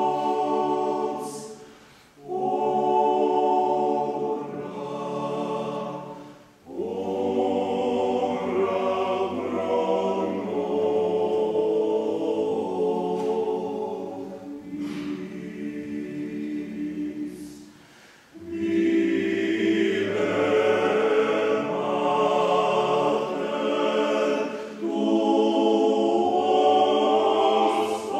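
Male vocal octet singing a cappella in chordal harmony. The phrases break off briefly about 2, 6 and 18 seconds in, with a low bass line beneath the chords.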